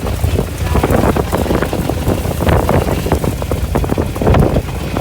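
Strong desert windstorm gusting hard against the microphone: a loud, rumbling, irregular buffeting that surges and drops every fraction of a second.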